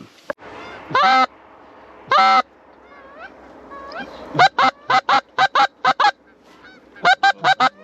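Goose honking and clucking, loud and close: two drawn-out honks about one and two seconds in, fainter calls after them, then a fast run of about eight short clucks and four more near the end.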